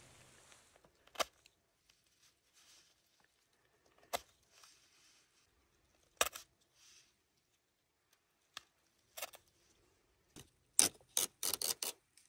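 Paper deer tag being cut with a small knife and handled: a few separate sharp rustles and scrapes about two seconds apart, then a quick run of about six short ones near the end.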